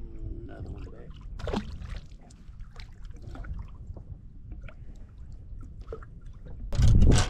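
Water lapping and trickling against a fishing boat's hull over a low wind rumble, with a few light knocks from someone moving about on the deck. Near the end a much louder steady rumble cuts in suddenly.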